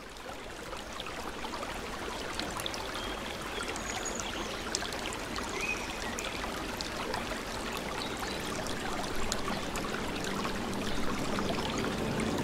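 Running water of a babbling stream, fading in over the first couple of seconds and then holding steady. It is sprinkled with small clicks and a few brief high chirps.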